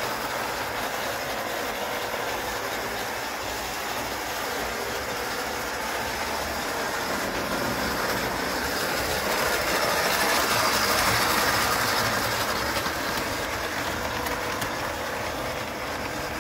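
Bing 1925 gauge 1 tinplate electric train running steadily along its track, a little louder about ten to twelve seconds in.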